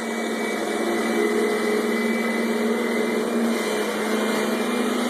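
Vacuum cleaner motor running steadily, a constant whirring drone with a low hum.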